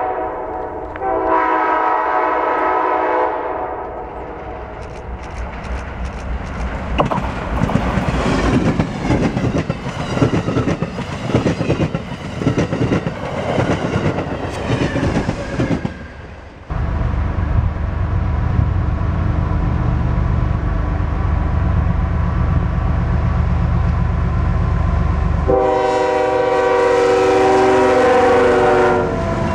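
An Amtrak passenger train sounds its horn for a few seconds, then passes at speed with a rush of noise and a rhythmic clicking of wheels over rail joints. About halfway through, a CSX freight train passes close by with a steady low diesel rumble, and a multi-note horn sounds again near the end.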